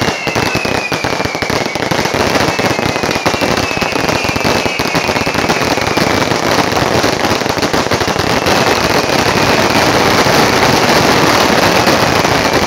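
Aerial fireworks going off in a dense, continuous crackling and popping barrage, with a few faint whistles sliding slowly down in pitch. It grows a little louder over the last few seconds.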